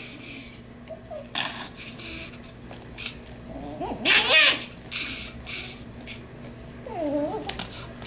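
Toy poodle crying out twice in high, wavering yelps, loudest about four seconds in and again more weakly near the end, while a brush is raked through its matted coat in short scratchy strokes.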